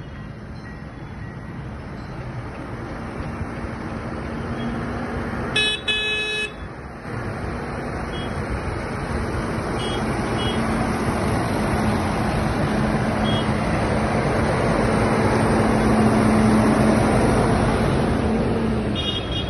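Tractors running past, their engine noise growing louder toward a peak late on, with a horn tooting twice about six seconds in.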